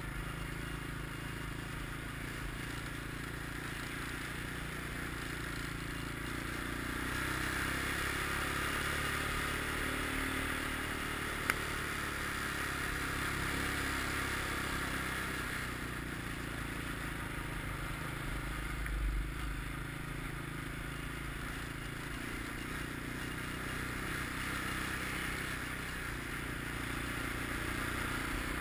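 ATV engine running steadily under way, with a hiss that swells and eases a couple of times. A single sharp click about eleven seconds in and a brief low thump about two-thirds of the way through.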